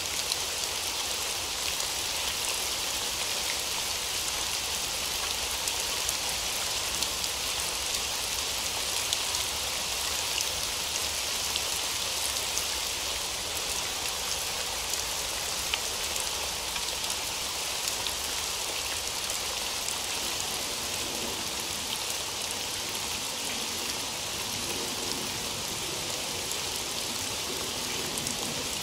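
Steady rain falling on a hard surface: a constant hiss with scattered fine drop ticks.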